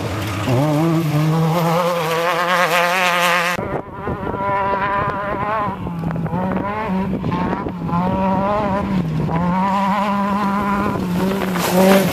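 Desert off-road race car engine running hard, rising in pitch about half a second in. Near four seconds in the sound cuts abruptly to another engine note that wavers up and down in pitch as it revs.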